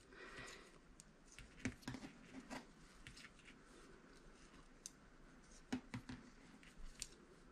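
Faint, irregular clicks and taps of knitting needles as stitches are worked, a few of them a little louder than the rest.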